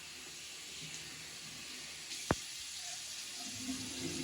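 Bathroom tap water running into a sink as a steady hiss, with a sharp click about two seconds in.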